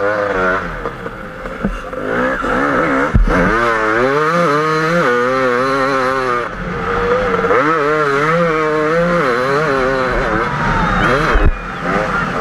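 KTM 250 EXC two-stroke enduro motorcycle engine revving hard under load, its pitch climbing and dropping again and again as the throttle is worked. Two sharp knocks stand out, about three seconds in and again near the end.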